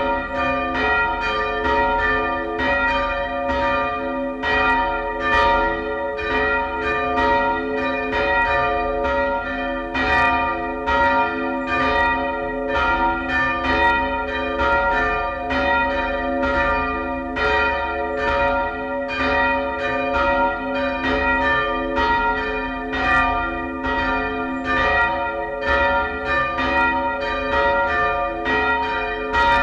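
Two church bells rung by hand from ropes, swinging and striking again and again so their strokes overlap in a continuous peal, about two strokes a second.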